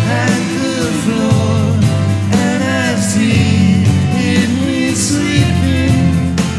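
Rock music from a live band: guitars and drums with a singer's voice over them.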